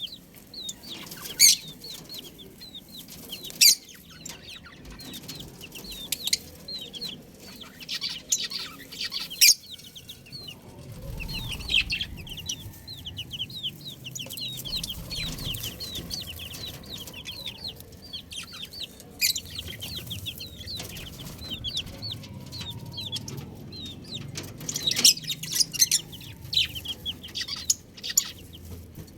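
Baby chicks peeping continuously, many short, high, falling chirps overlapping. Several sharp taps or knocks stand out loudly among them, a few in the first ten seconds and a cluster near the end.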